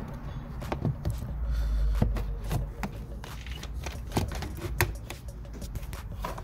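Scattered clicks and taps of hand work on the engine's plastic air intake parts: pliers squeezing a spring hose clamp and the ribbed rubber intake hose being worked off its pipe, with a low rumble of handling about a second and a half in.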